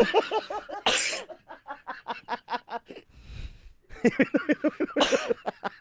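Coughing and laughter: a harsh cough about a second in, then a long run of quick, evenly spaced laughing pulses, and a second cough about five seconds in, followed by more laughter.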